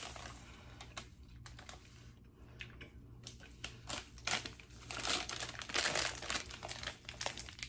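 Plastic candy bags crinkling and rustling as they are handled, with irregular small crackles and clicks, busiest about four to six seconds in.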